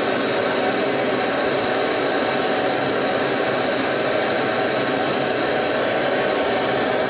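A gas blowtorch burning steadily, a constant rushing hiss that does not change.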